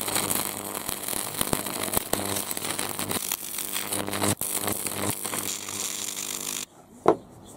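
High-voltage arc of a Portazap 4400 wasp zapper buzzing and crackling as it burns through a paper wasp's body, with a steady mains hum in the buzz. It cuts off suddenly near the end, and a single sharp click follows.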